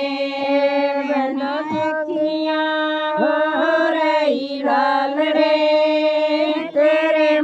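A female voice singing a Haryanvi banna geet, a wedding song for the groom, in drawn-out held notes that bend slowly in pitch between phrases.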